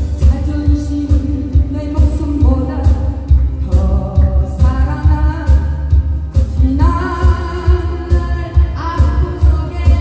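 A woman singing a slow song into a microphone, accompanied by acoustic guitar, over a steady low beat.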